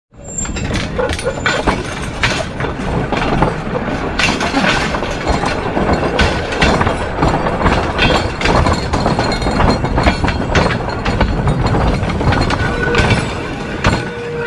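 Wooden hacienda rail cart rolling along old narrow-gauge track, its wheels and frame clattering and knocking over the rails.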